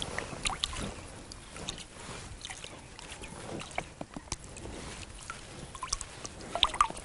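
Thick molasses-based bream attractant poured from a bottle onto the water surface: a scattered run of small drips and plops, a few louder ones near the end.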